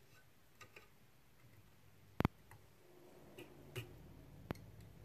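Faint, scattered clicks and ticks from hands working tying thread and materials on a hook in a fly-tying vise: about six small sharp clicks, the loudest a little over two seconds in.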